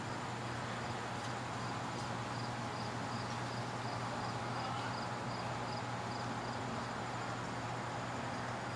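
Outdoor ambience: steady background hiss and a low hum, with a faint insect chirping about three times a second that stops after about six seconds.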